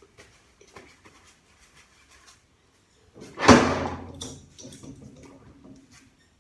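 Light metal clicks and rattles of ZF automatic transmission parts being handled during teardown, then one loud clank about three and a half seconds in that rings briefly before more light clicks.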